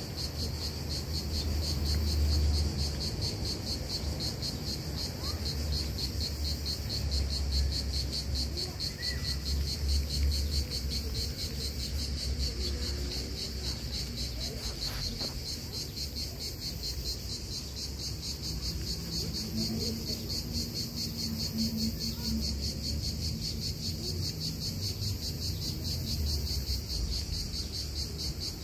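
Insects, cricket-like, singing a steady high trill made of very fast, even pulses.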